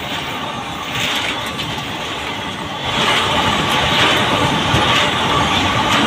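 Enclosed automobile-carrier freight wagons rushing past close by: a steady rumble and clatter of wheels on the rails, growing louder about three seconds in.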